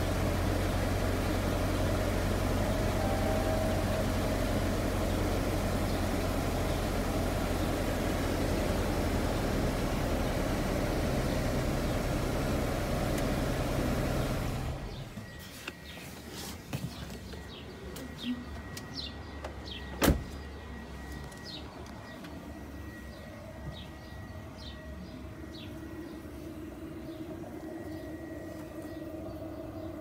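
Dodge Charger's 5.7 Hemi V8 idling with a misfire from a failed cylinder-2 lifter, heard inside the cabin. About 15 seconds in the engine sound stops abruptly, leaving light clicks and handling noises with one sharp click about 20 seconds in.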